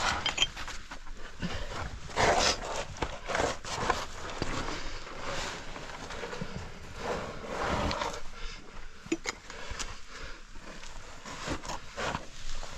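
A caver scrambling through a rocky cave passage: irregular scraping, shuffling and sharp knocks of body, boots and gear against rock and sand.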